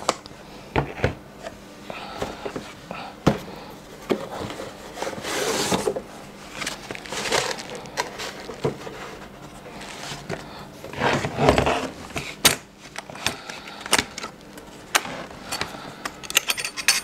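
Unboxing handling noise: a hard plastic tool case and cardboard boxes being lifted, slid and set down on a table, with scrapes, knocks and rustles. In the last few seconds, a quick run of sharp plastic clicks as the case's latches are worked open.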